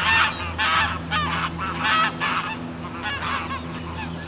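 A flock of white domestic geese honking, one call after another about every half second, thinning out in the last second. A steady low hum runs underneath.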